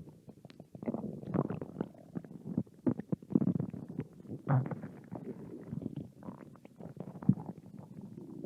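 A hungry human stomach growling and gurgling: irregular low rumbles broken by quick wet pops and clicks. There is a louder gurgle about four and a half seconds in and a sharp pop a little after seven seconds.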